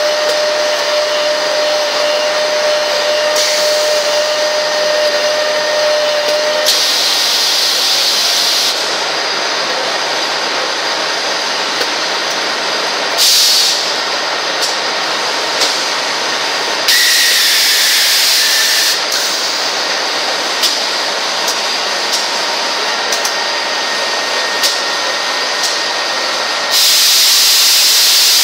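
Steady noise of running gear-cutting machines and an industrial robot arm loading gears, with a steady whine that stops about seven seconds in. Four loud bursts of hiss of one to two seconds each break through, typical of compressed-air blow-offs or pneumatic actuators in the cell, along with scattered small clicks.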